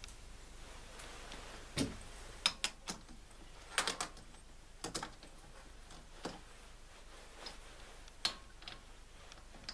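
Irregular sharp clicks and knocks of wood and metal as a small wooden blank is handled and fitted into a lathe's three-jaw chuck, with the lathe not running.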